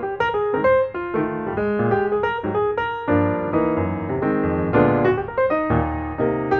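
Background music: a piano or electric-piano piece playing a quick run of notes with chords.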